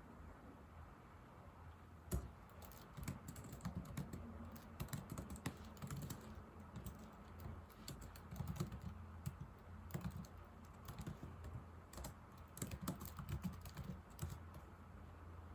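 Typing on an old laptop keyboard: an irregular, quick run of key clicks that starts about two seconds in.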